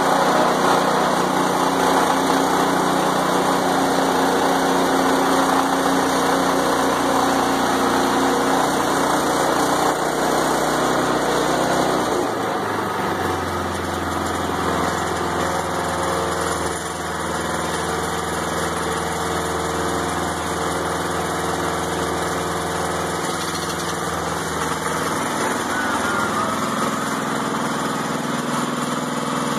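Small gas engine of a portable bandsaw sawmill running steadily; about twelve seconds in its sound shifts and drops a little in level.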